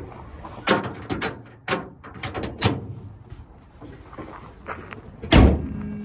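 A few sharp clicks and knocks, then the hood of a 2022 Toyota Corolla Hybrid slams shut with one loud bang about five seconds in.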